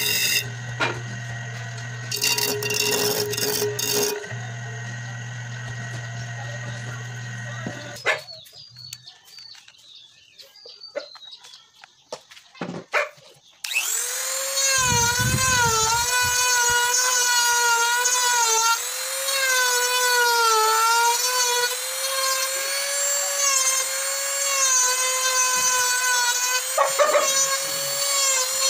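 An electric disc sander runs steadily for the first several seconds as ebony wood is sanded on it. After a quieter gap, a handheld rotary tool starts up about halfway through and whines while carving into the ebony, its pitch dipping and rising as the bit bites into the hard wood.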